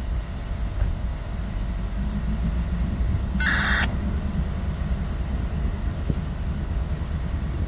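Norfolk Southern diesel locomotive engine running with a steady low rumble. A brief high-pitched beep sounds about three and a half seconds in.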